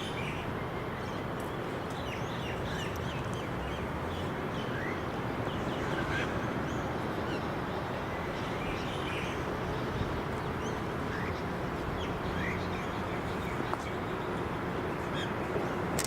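Birds chirping in short, scattered calls over a steady background hiss and rumble.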